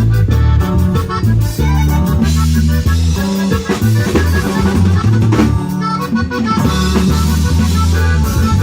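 Live Latin band playing an instrumental passage: accordion melody over bass guitar and a drum kit's steady beat, with no singing.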